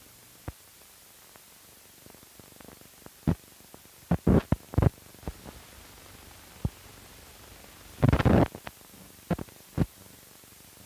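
Hiss of an old film soundtrack with scattered clicks and pops as blank film leader runs through. The loudest pops come in two short clusters, about four and eight seconds in.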